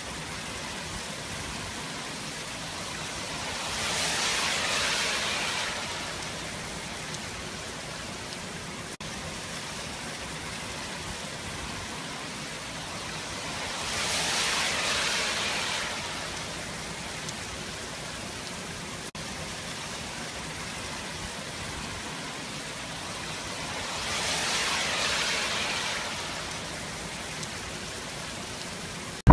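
Hurricane-force wind and heavy rain: a steady hiss of rain with a gust swelling and fading three times, about ten seconds apart.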